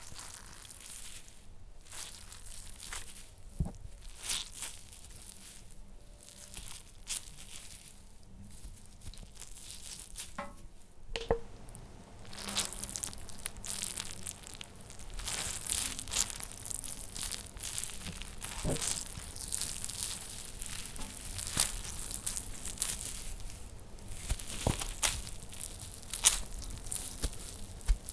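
Gore sound effect of bloody guts: irregular tearing, crackling and crunching, made to stand for flesh and entrails being torn apart. Sparse at first, it grows busier and louder from about twelve seconds in, with sharp cracks scattered throughout.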